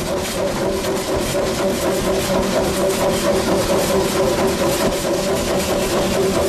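Steam locomotive running, heard from inside the cab beside its oil-fired firebox: a steady drone with a fast, even chuffing about four times a second.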